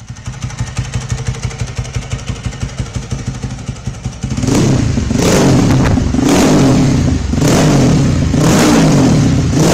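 Ducati Supermono's single-cylinder desmodromic four-stroke engine idling with evenly spaced, lumpy firing beats. From about four seconds in it is blipped about five times, the pitch rising and falling with each rev.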